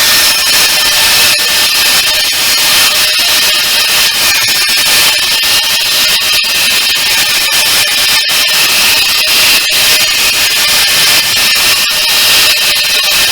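Angle grinder running flat out under load, grinding metal: a steady high whine over a rough hiss of abrasive on steel, with fine crackle throughout.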